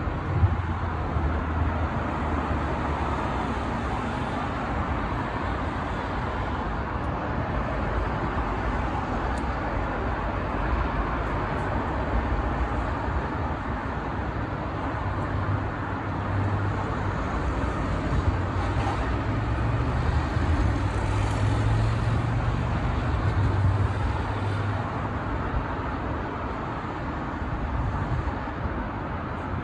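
Steady road-traffic and vehicle noise with a low engine hum, which grows louder between about 16 and 25 seconds in.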